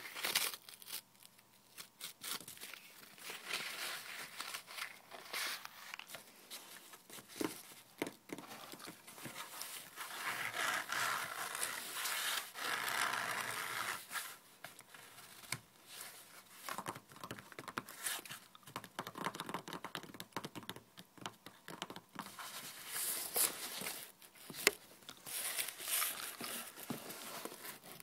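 Corrugated cardboard being torn and picked apart by hand, close to the microphone: irregular crackling rips and scratchy tearing of its paper layers, with a longer, steadier stretch of tearing about ten seconds in.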